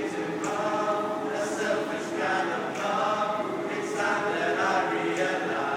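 Choir of young voices singing unaccompanied, several parts together holding chords that change about once a second.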